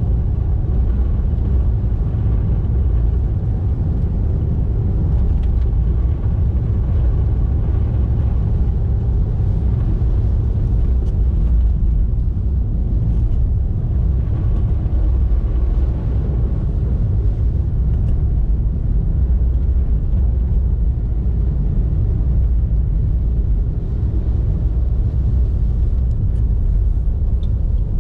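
Car driving on the road: a steady low rumble of road and engine noise, with no change in pace.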